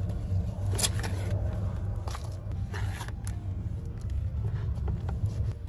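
Loose potting soil being scooped and scraped with a small plastic pot in a plastic tub: short, scattered rustling scrapes over a steady low rumble.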